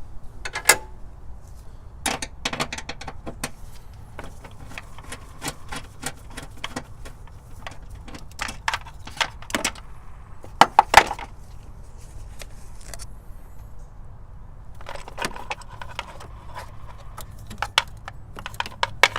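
Small metal parts and hand tools clinking and tapping irregularly as an old ring connector is taken off a battery cable terminal, with a quick cluster of three sharper clicks about eleven seconds in.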